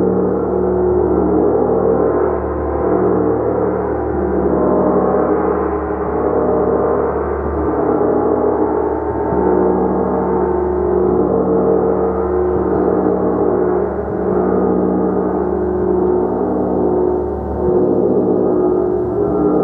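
A large gong played continuously, a dense shimmering drone of many overlapping tones that swells and ebbs every second or two and never dies away.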